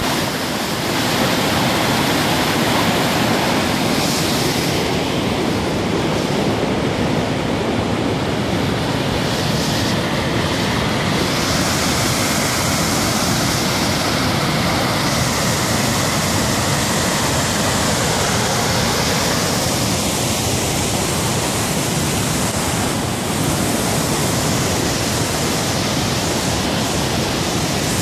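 Flood water from a karst spring pouring out of a rock opening and cascading down a rocky torrent bed: a loud, steady rush of white water.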